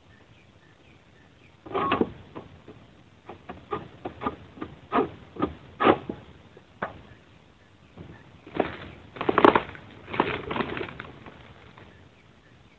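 An egrek pole sickle hacking and tugging at oil palm fronds in the crown: a run of short, sharp cutting knocks and leaf rustles, then a louder, longer rustling crash of fronds about nine seconds in.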